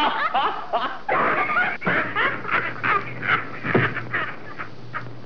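Two men laughing hard in short, high-pitched bursts, one after another.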